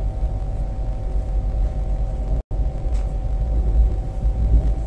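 High-speed train running at speed, heard from inside the passenger car: a steady low rumble with an even hum over it. The sound cuts out for an instant about halfway through.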